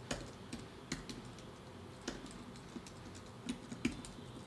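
Scattered, irregular keystrokes on a computer keyboard, a handful of light clicks while code is being typed.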